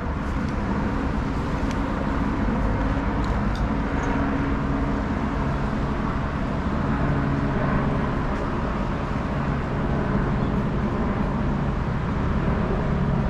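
Steady drone of motor engines with a constant low hum over a wash of outdoor noise, unchanging throughout.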